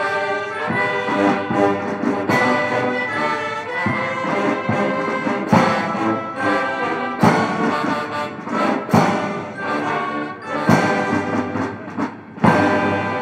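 Military brass band playing, with a heavy drum beat about every second and a half to two seconds.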